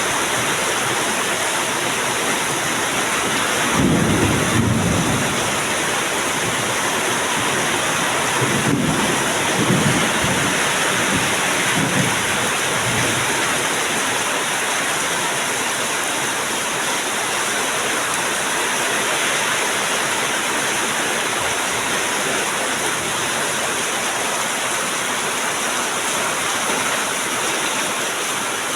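Heavy rain falling steadily, with thunder rumbling low about four seconds in and again in a few rolls from about nine to twelve seconds in.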